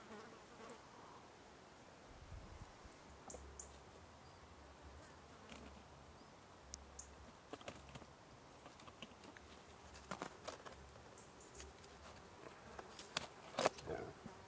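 Wire binding on a foil-wrapped parcel being cut with a knife and pliers: sharp metal clicks and snips with foil crinkling, coming thicker and louder in the last few seconds, over a faint insect buzz.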